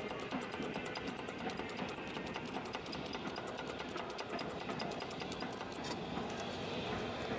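Eunos Roadster (Mazda MX-5) running with a fast, even high-pitched chirping, about nine chirps a second, from around the clutch release. This is the abnormal noise the owner is chasing. The chirping stops suddenly about six seconds in, leaving the engine running steadily.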